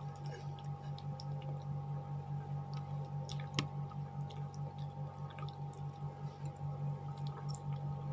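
Close-up mouth sounds of slurping and chewing noodles: soft wet squishing with scattered small clicks, one sharper click about three and a half seconds in. A steady low hum runs underneath.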